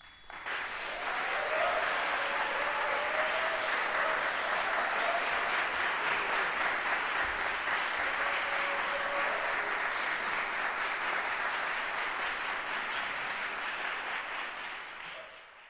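Audience applauding: the clapping starts abruptly, holds steady and dense, and dies away near the end.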